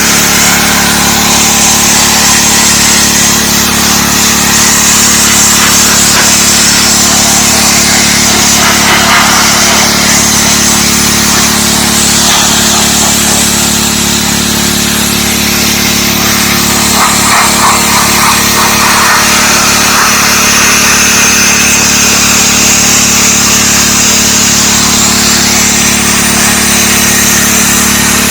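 DeWalt 3600 psi gas pressure washer running steadily, its small engine droning while the high-pressure jet hisses against concrete, the spray noise shifting a little as the wand moves.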